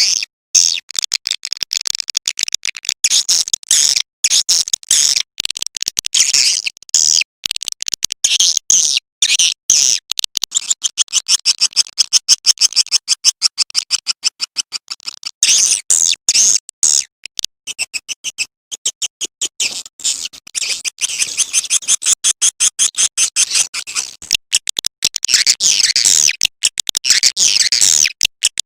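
Swiftlet lure call recording: rapid, high-pitched chirping and clicking twitters of edible-nest swiftlets, repeated in fast runs with brief gaps. This is the call sound played to draw swiftlets to a nesting house.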